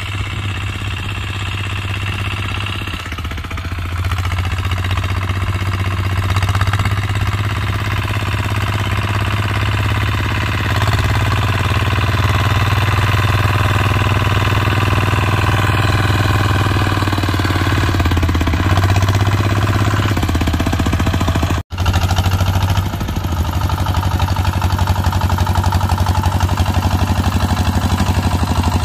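Kubota two-wheel hand tractor's single-cylinder diesel engine chugging steadily under load as it hauls a trailer of cassava stems over rough ground. It grows louder as it approaches, and the engine speed shifts about two-thirds through.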